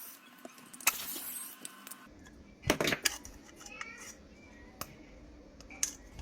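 Scattered light clicks and taps of small plastic camera parts being handled, with a louder short sound about three seconds in.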